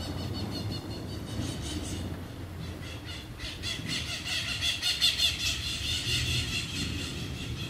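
Birds calling in harsh, high-pitched squawks repeated rapidly in long runs. A second, louder run starts about three seconds in. A low rumble sits underneath.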